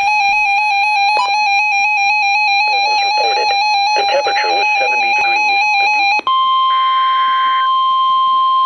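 NOAA weather radio alert: a buzzy electronic alarm warbling rapidly between two pitches for about six seconds, with faint voice audio beneath it. Then a steady high tone, the weather radio warning alarm tone, cuts in together with a second, higher steady tone, and is overlaid twice by short bursts of buzzing SAME data tones.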